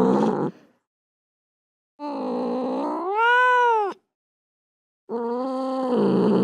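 Domestic cat meowing and yowling in drawn-out calls with gaps of silence between them. One call ends about half a second in. A second, about two seconds long, swings up and back down in pitch at its end. A long third call begins about five seconds in.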